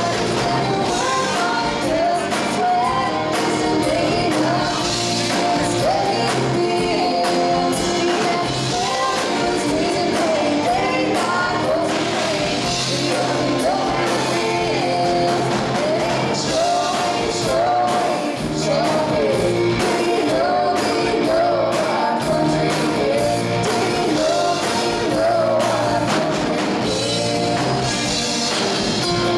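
Live band performance: a woman singing lead over acoustic guitar, electric guitar and a drum kit, played through a PA. The song runs without a break.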